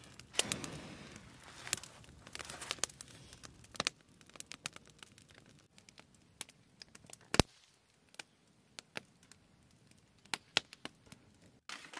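Several puffs of breath blown onto a campfire, mixed with crackling, through the first few seconds. Then the wood fire crackles and pops on its own in scattered sharp snaps, with one loud pop about halfway through.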